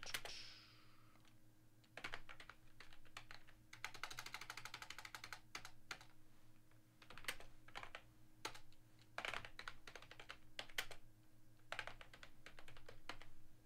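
Typing on a computer keyboard: scattered faint key clicks, with a fast run of keystrokes about four seconds in.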